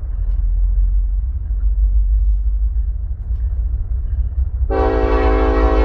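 Nathan K5LLA five-chime air horn on a Norfolk Southern SD70ACE locomotive, starting a long blast near the end. Under it runs a steady low rumble.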